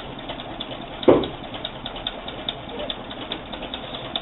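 Homemade two-cylinder beta Stirling engine running at about 290 rpm, its mechanism ticking lightly about five times a second. One louder knock about a second in.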